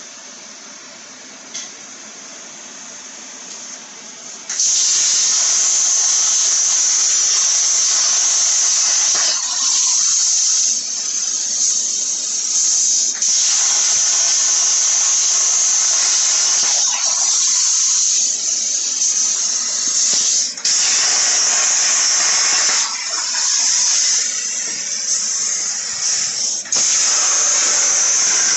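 CNC plasma cutter's torch striking its arc about four and a half seconds in and cutting with a loud, steady, high hiss, which dips briefly several times along the way.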